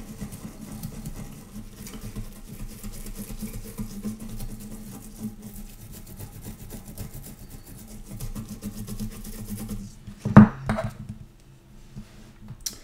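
Rapid, continuous scrubbing of battery-corroded motherboard traces wet with vinegar, stopping about ten seconds in. It is followed by a single sharp knock.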